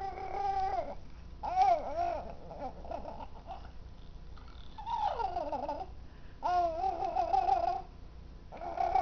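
Baby girl cooing and babbling in a run of short high-pitched vocal sounds with pauses between them. About five seconds in, one sound slides down in pitch.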